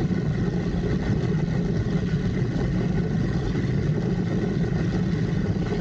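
Steady low rumbling noise of a cable-mounted sky cycle moving along its steel cable, with wind on the microphone.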